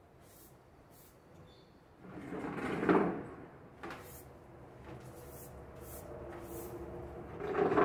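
Stiff broom scrubbing a wet tiled floor covered in water, with two long strokes that build up and stop, about three seconds in and near the end.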